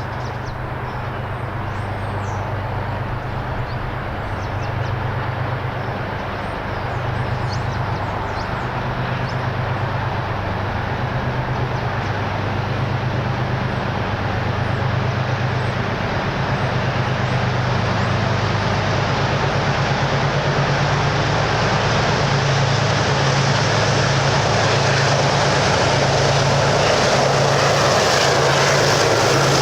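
Diesel locomotive hauling a train, its engine drone steady under a broad rumble and growing steadily louder as the train draws nearer.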